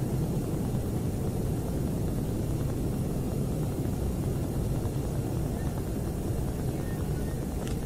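A steady low rumbling noise that does not pause or change.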